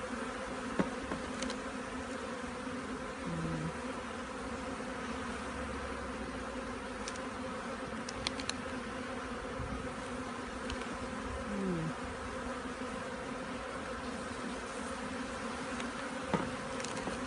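Steady hum of a honeybee colony in an open hive that is preparing to swarm, many bees buzzing over the exposed frames. A couple of short falling buzzes as single bees pass close, and a few light clicks a little past the middle.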